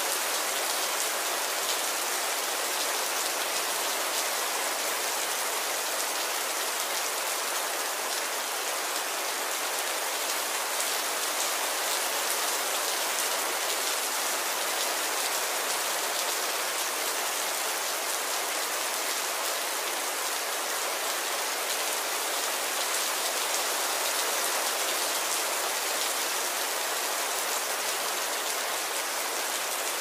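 Steady rain: an even hiss of falling drops that keeps up without a break.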